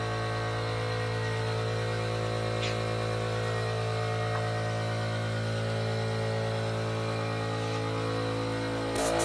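A steady machine hum with a low pitch and a stack of even overtones, unchanging throughout, with one faint click about two and a half seconds in.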